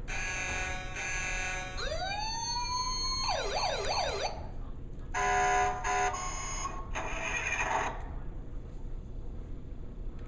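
Electronic siren and horn sound effects from battery-powered Hess toy trucks, set off one after another. First come two beeping horn tones, then a rising siren wind-up, a fast warbling siren, short honks, and a brief noisy burst.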